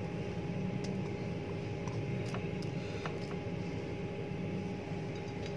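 Steady low hum and hiss of room noise, with a few faint light clicks, about four of them, as a plastic bowl tips butter into a glass mixing bowl.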